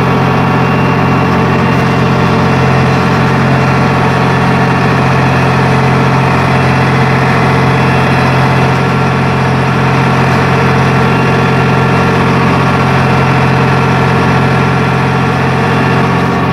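Farm tractor's diesel engine running steadily, heard from inside the cab: a loud, constant hum with no change in engine speed.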